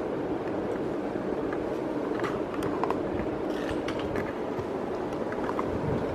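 Casablanca Four Seasons ceiling fan running at high speed: a steady rush of air from the blades with a fast, low pulsing and a few faint clicks.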